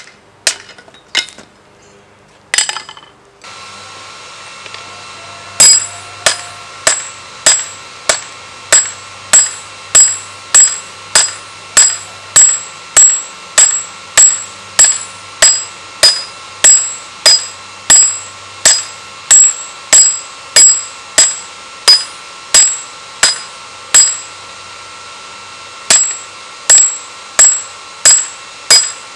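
Hand hammer striking a red-hot steel spear head on a round steel block anvil. A few scattered blows come first, then a steady run of ringing strikes, a little more than one a second, with a short pause near the end.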